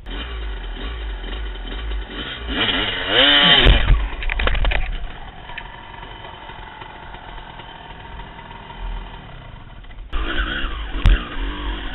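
Two-stroke dirt bike engine revving hard, its pitch rising then falling, followed by a clatter of knocks as the bike goes down on a rocky slope. The engine then runs quietly, and loud engine noise returns near the end.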